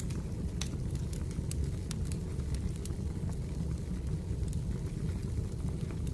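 Firewood burning: a steady low rush with irregular sharp crackles and pops, a couple each second.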